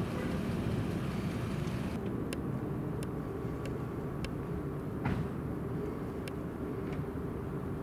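Steady low rumble of idling vehicle engines. Faint sharp clicks come roughly every two-thirds of a second from about two seconds in, and there is a single knock about five seconds in.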